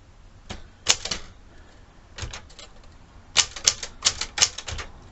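Smith Corona Galaxie 12 manual typewriter being typed on: a few separate keystrokes in the first seconds, then a quick run of key strikes, about four a second, from a little past halfway.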